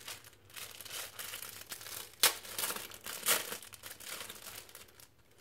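A shiny plastic wrapper being handled and pulled open: irregular crinkling and tearing, with two sharp, loud crackles a second apart in the middle.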